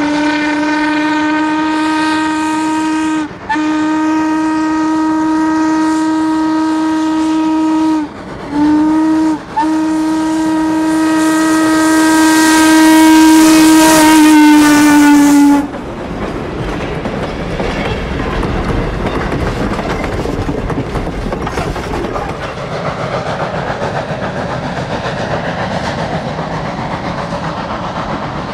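Norfolk and Western 475, a 4-8-0 steam locomotive, blowing its whistle in the grade-crossing signal of two long blasts, one short and one long. The last blast grows louder as the engine draws near and cuts off about halfway through. The engine and its cars then roll past, clattering on the rails.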